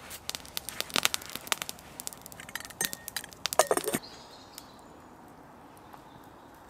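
Sharp crackles and metallic clinks from a steel camping pot and its lid being handled over a campfire. About four seconds in this gives way to the softer steady sound of the fire burning, with an occasional faint crackle.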